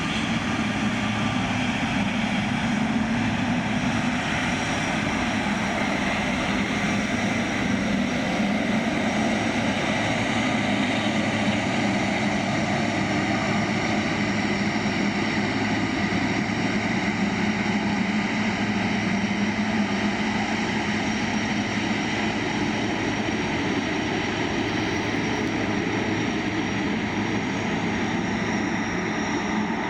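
Boeing 777 freighter's General Electric GE90 turbofan engines running: a continuous jet roar holding nearly level, with a few steady tones in it.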